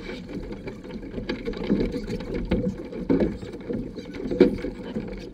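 Lake water rushing and slapping against the hull of a small sailing catamaran under way, muffled, with irregular knocks and splashes.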